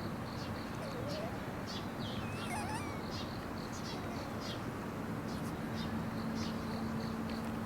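Shiba Inu puppies suckling at their mother: a running stream of small, high clicks and squeaks with the odd short whimper, over a steady low hum.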